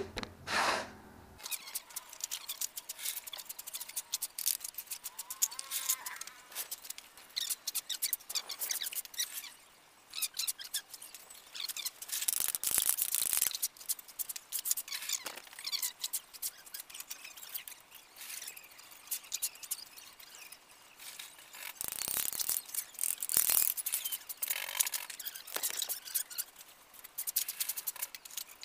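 Fast-forwarded sounds of hand-tool work on a scooter's front fork: a quick jumble of clicks, clinks and squeaky chatter, pitched up high and with almost no low end.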